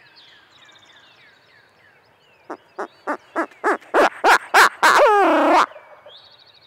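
Barred owl hooting: a run of about nine hoots that come faster and louder, ending in a drawn-out call that falls in pitch, over faint dawn birdsong.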